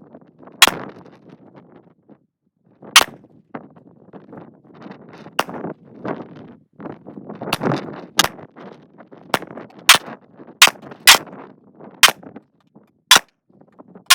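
Pistol firing a magazine of 124-grain Speer Gold Dot ammunition one shot at a time, about a dozen sharp shots. The shots come a second or two apart at first and then quicker, about half a second to a second apart, each followed by a short ringing echo.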